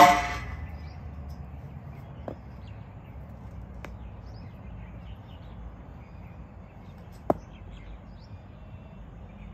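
A cricket bat striking the ball in net practice: one loud sharp crack right at the start that rings briefly. After it comes a low steady outdoor background with a few faint clicks and a single sharper knock about seven seconds in.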